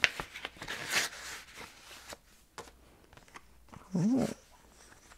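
Paper rustling and crinkling as items are handled and taken out of a box over about the first second, with a few light clicks after. About four seconds in, a short wordless vocal 'hmm' that rises and falls in pitch.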